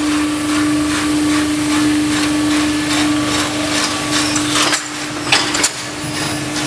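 Vertical packaging machine with an auger powder filler running: a steady motor hum over a hiss, with repeated clicking. About five seconds in the hum cuts out briefly twice, with a few sharper clicks.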